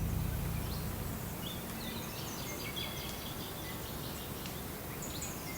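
Small birds chirping, with short high calls scattered throughout over a steady natural background hiss.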